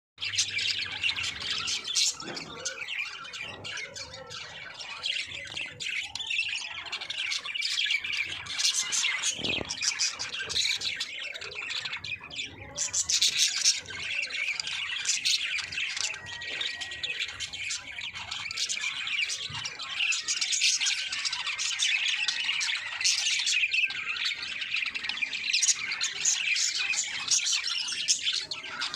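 Budgerigars chirping and chattering continuously, many overlapping high calls with harsher squawks mixed in, the sound of several budgies together.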